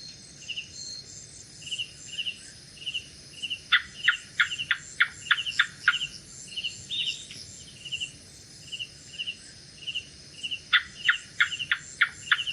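A gecko chirping in two fast runs of sharp clicks, about four seconds in and again near the end. Behind it, insects call in a steady pulsing rhythm, two or three pulses a second, over a high, continuous night-insect hiss.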